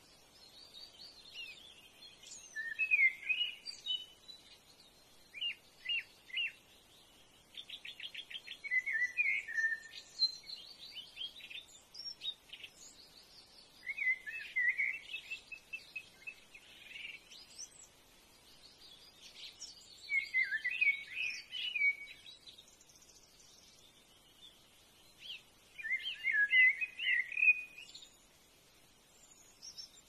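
Birds calling: bursts of chattering calls about every six seconds, one of them a quick run of evenly spaced notes about eight seconds in, with fainter high chirps between.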